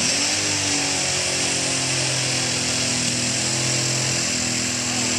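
Pulling tractor's diesel engine running flat out under load, its note dipping and coming back up at the start, then holding steady with a high whine over it.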